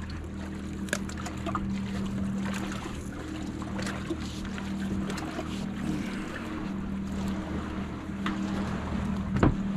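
A steady low machine hum with scattered knocks and clatters; the loudest knock comes near the end.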